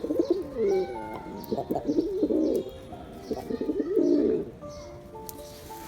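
Male pigeon cooing in three rolling, wavering bouts of about a second each.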